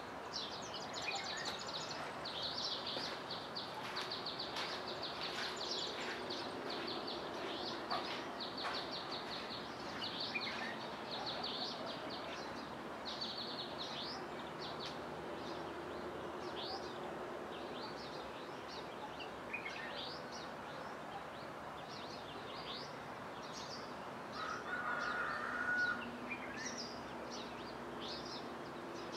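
Birds chirping and trilling in a dawn chorus: many quick, high calls overlapping throughout, with one louder, lower call about 25 seconds in.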